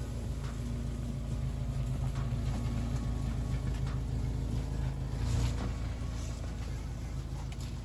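Jeep Wrangler's engine running low and steady as it crawls slowly down a rough dirt trail, with scattered light clicks and a brief louder surge about five seconds in.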